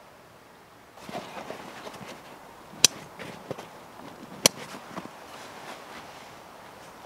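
Rustling and knocking of gear being handled, a backpack and bedding moved about on a groundsheet, starting about a second in. Two sharp clicks stand out, one about three seconds in and another about a second and a half later.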